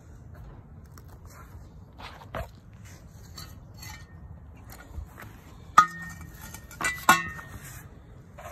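Rusty steel exhaust pipe knocked twice, about a second and a half apart, each sharp metallic clank ringing briefly; a few light clicks and rustles come before.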